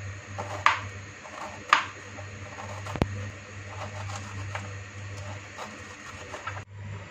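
Knife shaving shreds off a raw cabbage head, with a few sharp crunchy cuts about a second apart near the start and softer slicing after, over a steady low hum.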